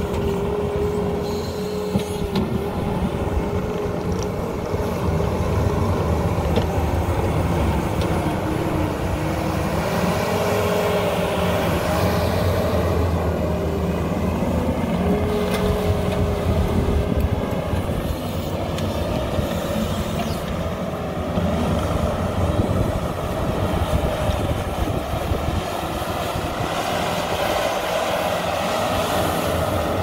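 Case TV450 compact track loader's diesel engine running steadily under load as it pushes and grades dirt, its whine dipping in pitch and recovering several times as the load changes.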